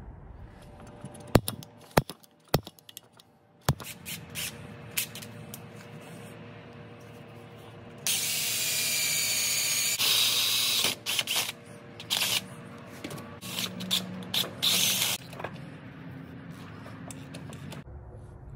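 Drill boring a hole through an aluminium radiator hose filler neck clamped in a bench vise. A few sharp clicks and knocks come first. Then the drill runs, loudest for about three seconds in the middle as the bit cuts, followed by short stop-start bursts.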